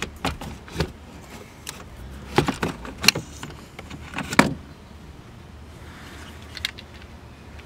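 Clicks, knocks and rattles of a Ford Focus RS's stock shifter assembly, metal and plastic, being worked loose and lifted out of the centre console. The loudest knocks come about two and a half, three and four and a half seconds in, with only a few faint clicks after that.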